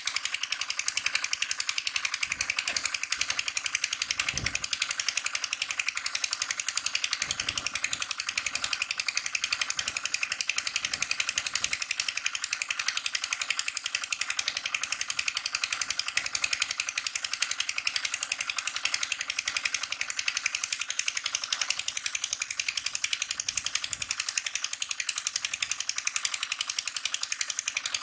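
Engine-driven water pump running steadily on the bank with a fast, even clatter while it pumps water out of the fishing pit.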